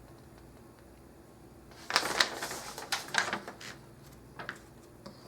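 Parts of a PC case being handled and taken off: a rattling clatter with sharp clicks starting about two seconds in and lasting about a second and a half, then a couple of short clicks near the end.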